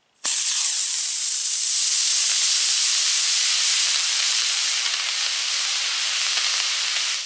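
A 24mm E6 long-burn model rocket motor ignites abruptly and burns with a loud, steady hiss for about seven seconds as the rocket glider climbs. The hiss eases slightly, then cuts off sharply at burnout.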